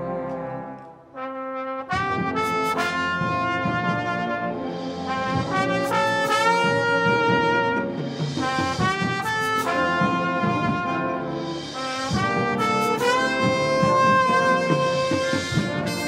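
Military marching band playing: trombones, trumpets, euphoniums and saxophones. A held chord fades about a second in, and after a brief dip the band comes back in with loud, sharply accented phrases.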